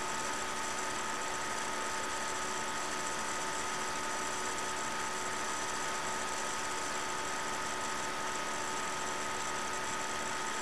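Steady electrical hum and hiss, with a couple of faint constant whines, unchanging.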